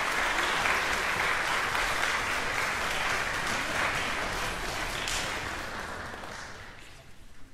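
Audience applauding steadily, the applause dying away over the last two seconds or so.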